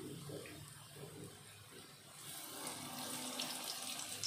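Lentil-batter fritters (laddu peethi) deep-frying in hot oil: a steady bubbling sizzle that grows louder and hissier about two seconds in as a spoonful of batter goes into the oil.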